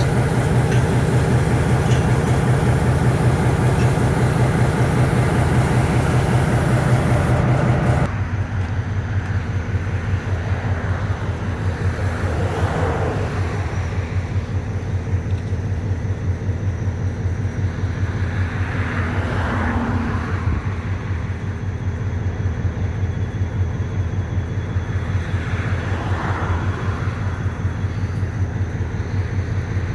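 EMD MP15 diesel switcher's engine being cranked over on weak batteries with a loud, rapid rhythmic pulse, which stops abruptly about eight seconds in. A diesel locomotive engine keeps idling steadily underneath.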